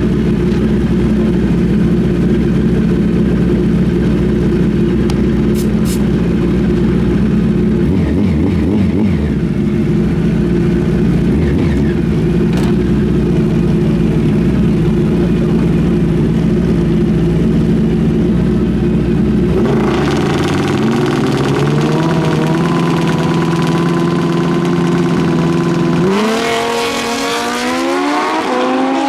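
Two drag-racing motorcycles, one a Suzuki Hayabusa, idling on the starting line. About twenty seconds in the engines begin to rev up, and a few seconds before the end they launch, engine pitch climbing steeply as they pull away.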